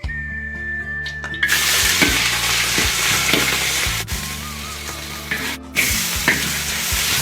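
Food frying in hot oil: a loud sizzle that starts suddenly about a second and a half in, with a few clatters of stirring, over background music.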